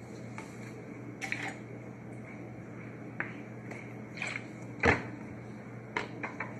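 Small handling clicks from a plastic lemon-juice bottle and a measuring spoon, with one sharper knock about five seconds in, over a steady low hum.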